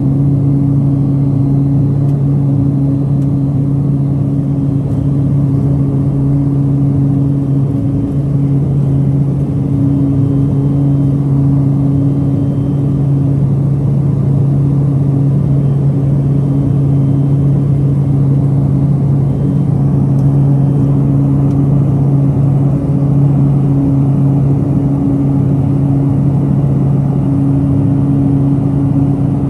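Cabin noise of a Pilatus PC-12 single-engine turboprop climbing after takeoff: the propeller and Pratt & Whitney PT6A turbine make a loud, steady drone with a deep hum and a second, higher hum above it.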